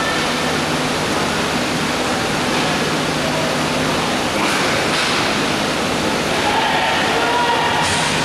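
Steady rushing background noise of a roller hockey game, with a few faint knocks.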